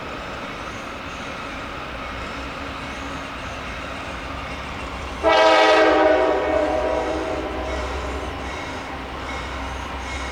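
Diesel locomotive air horn on a Norfolk Southern freight train: a loud chord sounds suddenly about halfway through, holds briefly and fades over a couple of seconds, over the steady low rumble of the approaching train.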